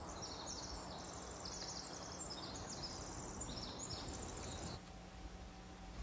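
Forest ambience with small birds singing rapid, high chirping trills, which stop about a second before the end.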